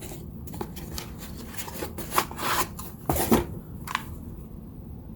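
Packaging being handled and opened: irregular rustling and scraping, with the loudest bursts about two and three seconds in.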